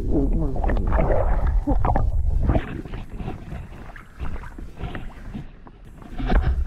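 Water heard through a camera held under the surface: a loud muffled underwater rumble and gurgling with wavering tones. About two and a half seconds in, the camera comes up out of the water, and after that there are quieter splashes and sloshing.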